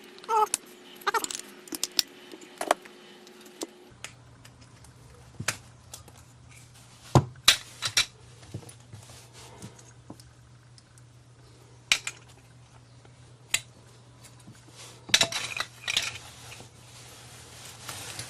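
Small plastic and metal parts of a dismantled massager clicking and clattering as they are handled and set down on a hard surface, in scattered sharp knocks, with clusters about a third of the way in and near the end.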